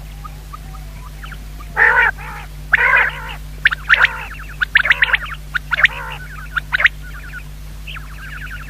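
Common quail calling: about five harsh, raspy calls spaced roughly a second apart, mixed with quick sharp chirps, falling quiet in the last couple of seconds.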